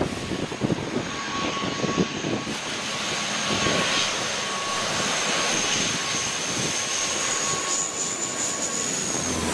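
American Eagle airliner passing low on its landing approach: loud, steady engine noise with a thin high whine that rises slightly near the end.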